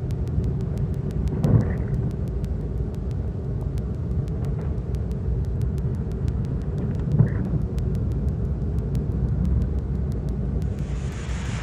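Steady low road rumble of a car driving on a wet road, with two brief thumps. Near the end it cuts to an even hiss of rain and wind.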